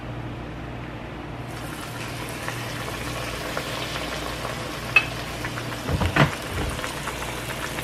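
Battered catfish frying in hot oil, a crackling sizzle that sets in about a second and a half in as the piece goes into the pan. There is a sharp click about five seconds in and a couple of low thumps about a second later.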